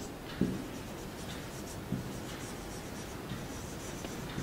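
Marker writing on a whiteboard: short, faint squeaky strokes as words are written, with a couple of soft knocks.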